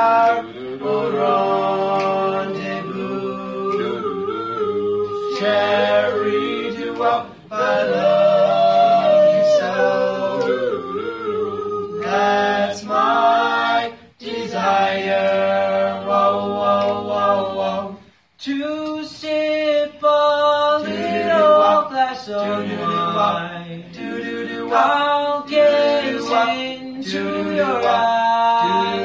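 Four young male voices singing a cappella doo-wop in close harmony, holding sustained chords with no instruments. The singing breaks off briefly a few times, about 7, 14 and 18 seconds in.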